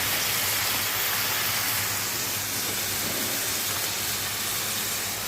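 Chicken and spices frying in oil in a pan, sizzling steadily.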